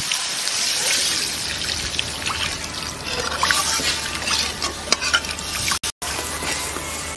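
Water pouring into a wok of fried spice paste, then a metal spatula stirring and scraping the thinned curry, with small clicks against the pan. The sound cuts out briefly near the end.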